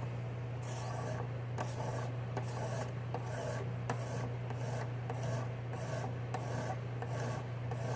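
300 grit diamond hone on a KME guided sharpener being stroked along an AUS-8 steel knife edge in a steady rhythm of rasping scrapes, about two to three strokes a second. This is the coarse first stage of sharpening, raising a new edge.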